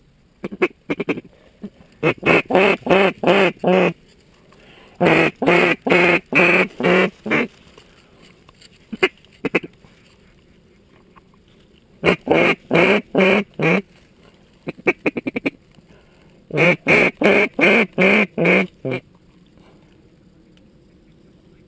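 Mallard duck call blown in runs of six to eight loud quacks, about three a second, four times over with a few short bursts between. These are hen-mallard calling sequences used to work ducks into the decoys.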